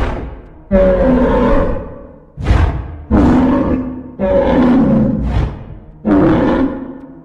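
Triceratops calls made as a sound effect: a string of about five loud, low roaring bellows. Each starts suddenly and fades away over about a second, and they come every second or two.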